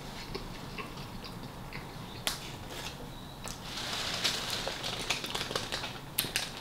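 Close-miked chewing of a mouthful of steak-and-cheese sub: scattered wet mouth clicks and smacks, one sharp click a little past two seconds, and a denser stretch of soft crackle between about three and a half and five seconds.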